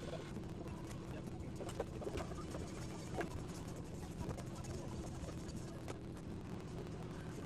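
A motor running steadily with a low hum, with scattered light clicks and taps over it.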